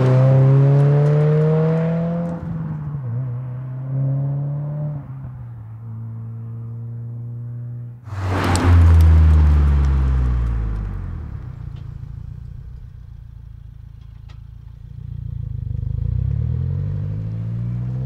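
2022+ Subaru WRX's turbocharged 2.4-litre flat-four through a titanium cat-back exhaust, accelerating past with its pitch rising and an upshift about two seconds in. About eight seconds in the car passes close and loud, its pitch falling as it draws away and fades. Near the end the exhaust note rises again as the car accelerates.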